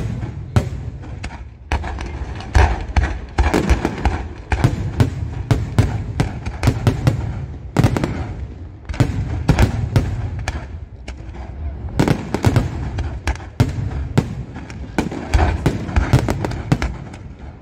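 Fireworks display: a dense barrage of shells and crackling reports going off in quick succession, several a second, over a continuous low rumble. The barrage eases briefly a little past halfway before building again.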